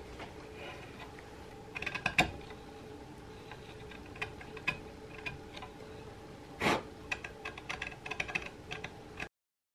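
Flat wood chisel pushed by hand, paring small chips from a rifle stock's breech inlet: scattered small clicks and crackles as the edge cuts, with one louder, longer crunching cut about two-thirds of the way in and a quick run of clicks after it. The sound cuts out suddenly near the end.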